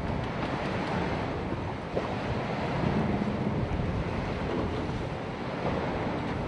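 Wind buffeting the microphone over the wash of the open sea, a steady rushing noise.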